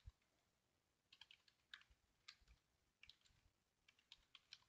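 Faint typing on a computer keyboard: short runs of key clicks with brief pauses between them.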